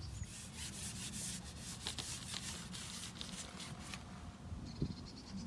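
Rapid rubbing and scraping handling noise from the fishing pole and tackle being worked, a dense run of short strokes that stops about four seconds in.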